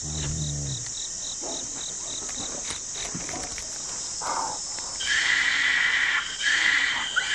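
Two loud calls from a Formosan rock macaque, each about a second long, from about five seconds in. Before them, a short low grunt at the start, then a regular high chirping about five times a second for the first three seconds, all over a steady buzz of forest insects.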